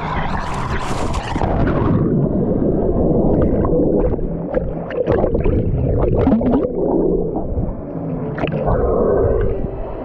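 Water splashing and gurgling close to the microphone: a loud splash in the first second or so, then churning water with many small crackles and gurgles.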